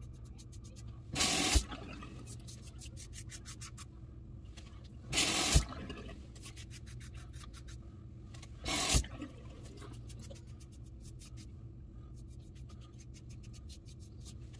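Double-edge safety razor with a Personna Platinum blade scraping stubble off a lathered scalp in short strokes, a fine rapid crackle of cutting hairs. Three times, about a second, five seconds and nine seconds in, a loud half-second rush cuts in, each ending in a knock.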